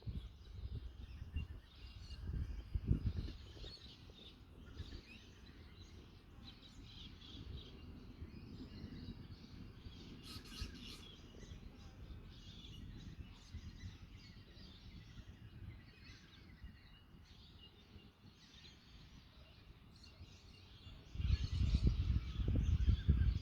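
Wild birds chirping in scattered short calls over a low rumble of wind on the microphone. The wind dies down after the first few seconds and gusts up strongly again near the end.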